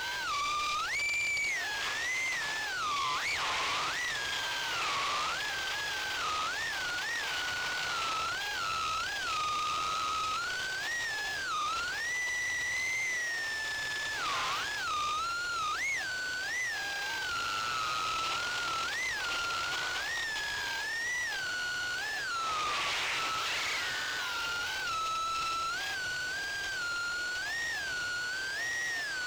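A 2-inch FPV quadcopter in flight: four Gemfan 1105 7500KV brushless motors spinning 2-inch four-blade propellers make a high-pitched whine. The pitch rises and falls constantly with quick throttle blips.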